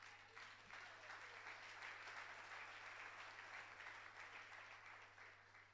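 Congregation applauding, faint and distant, fading away near the end, over a steady low electrical hum.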